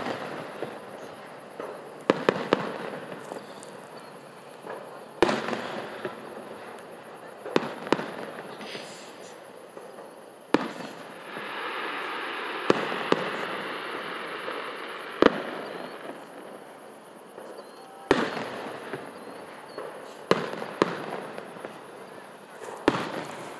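Aerial fireworks shells bursting: about a dozen sharp booms a second to a few seconds apart, each with a short echoing tail.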